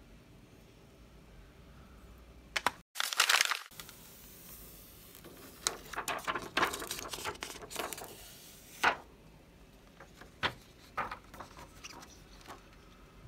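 Plastic screen-protector film being handled and peeled off a tablet: crinkling, rustling and peeling with sharp clicks, densest in the middle, then a few light taps.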